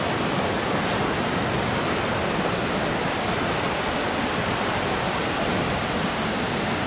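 Ocean surf breaking along the shore, a steady rushing wash of water with no distinct individual crashes.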